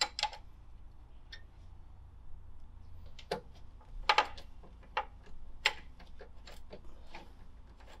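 Irregular metallic clicks and taps of tools and small parts being handled while a screw is driven in to mount a mechanical combination lock pack on a safe door, over a faint low hum.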